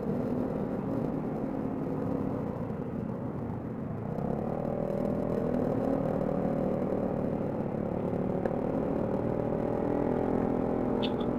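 Motor scooter engine running steadily while riding, a droning note that rises slightly in level about four seconds in, over a low road rumble.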